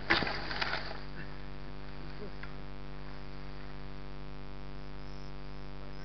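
Grass and leaves brushing against the camera for about a second, then a steady insect drone from the undergrowth.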